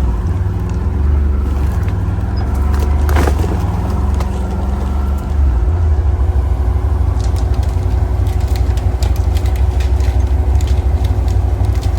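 Can-Am 6x6 off-road vehicle's engine running under way: a steady low rumble whose note wavers over the first five seconds, then gets louder about halfway through. Sharp clicks scatter over the second half.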